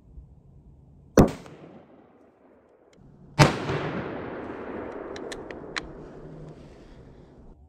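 Two scoped deer-rifle shots about two seconds apart; the second rolls on in a long echo that fades over several seconds. A few light clicks follow.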